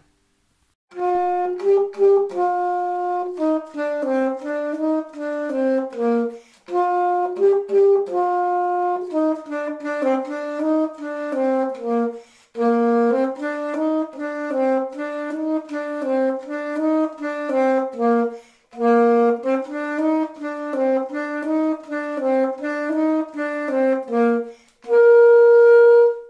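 Solo alto saxophone playing a simple melody of separate notes in four short phrases with breaths between them, ending on a long held note.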